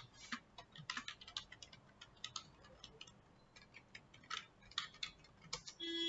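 Faint, irregular clicking of keys being typed on a computer keyboard, several strokes with short pauses between them.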